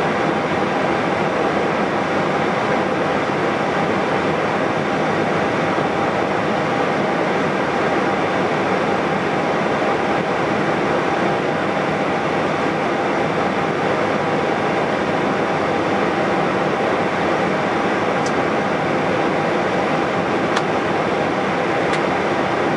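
Steady cockpit noise of an Airbus A320-214 holding on the runway: engines at idle with the air-conditioning and equipment fans making an even hum and hiss. A few faint clicks near the end.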